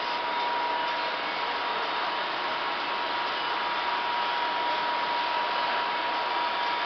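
Steady mechanical whir of a powered-up CNC turning centre, with a constant high whine running through it.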